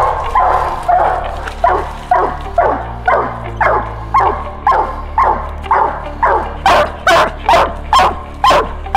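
Coonhound barking treed at the base of a tree: a steady chop of about two barks a second, each bark dropping in pitch, growing sharper in the last couple of seconds. It is a tree bark, the hound signalling that it has its quarry up the tree.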